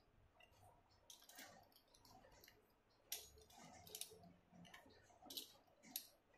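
Faint, scattered clicks and light scrapes of a metal wheel cutter rolling through rolled dough onto a wooden chopping board.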